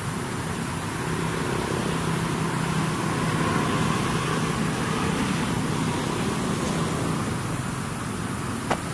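Steady low mechanical hum over an even rumbling noise, a little louder in the middle, with one sharp click near the end.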